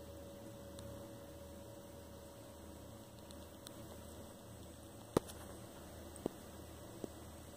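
Steady hum of an EK-XTOP Revo Dual D5 water-cooling pump and the old power supply running it, circulating coolant through a freshly filled loop to bleed out air during leak testing. A sharp click about five seconds in, then two fainter ones.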